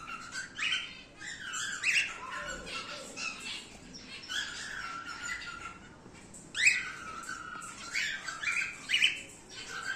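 Male cockatiel calling: a steady string of short chirps and whistled notes with squawky edges, several sweeping upward, the loudest a sharp rising call about two-thirds of the way through.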